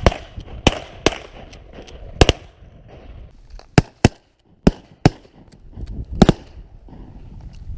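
Several hunters' shotguns firing in a ragged volley: about eight shots over roughly five and a half seconds, some close together in pairs.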